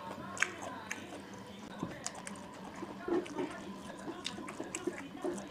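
Close eating sounds of a person chewing a mouthful of rice, chicken and fried cabbage, with scattered small clicks and wet smacks and a short cluster of them about three seconds in.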